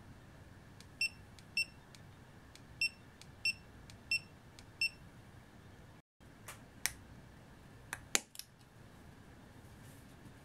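GoPro Hero5 Session action camera beeping: six short high beeps over about four seconds, a pair then four more, its status beeps as it is switched on and starts recording. After a break, a few sharp clicks of the camera being handled.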